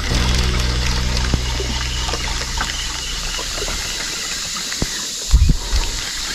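Water trickling and splashing around a small fishing boat, over a low hum that fades out in the first few seconds, with scattered light clicks and one heavy thump a little past five seconds in.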